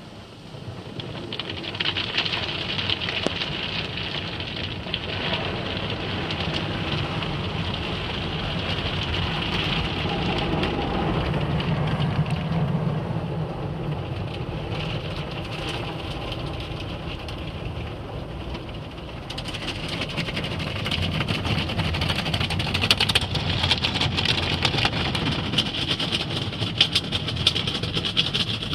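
AVW tunnel car wash equipment heard from inside the car: a steady wash of water and foam spraying over the body and glass, rising about a second and a half in. About two-thirds of the way through it grows louder and busier, with many quick slaps as the cloth brushes reach the car.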